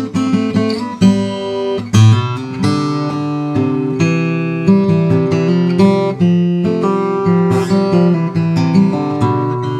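Steel-string OM acoustic guitar with Brazilian rosewood back and sides and a torrefied Adirondack spruce top being played: picked and strummed notes and chords ringing on over one another, with a new note or chord about every half second to a second.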